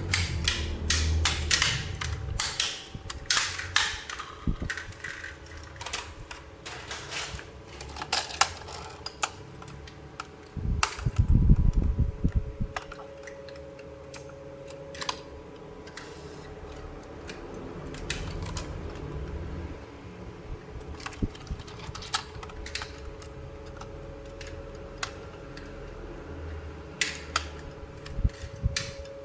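Hard plastic toy pieces being handled, giving sharp irregular clicks and taps, dense at first and sparser later. A low rumbling knock comes about eleven seconds in, over a faint steady hum.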